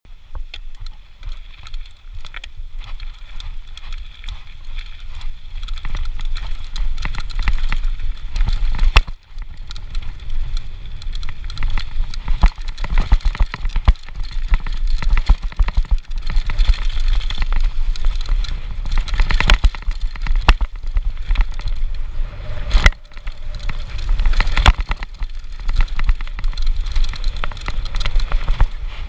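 Downhill mountain bike ridden fast down a dirt trail: tyres rolling over dirt and gravel while the chain and frame rattle and clatter over bumps, with wind buffeting the microphone. There is a brief sudden drop to near quiet about nine seconds in.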